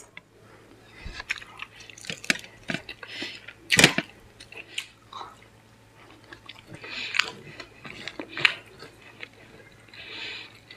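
Close-up chewing and mouth sounds of a person eating egg biryani by hand: irregular smacks and clicks with pauses between them, the loudest about four seconds in.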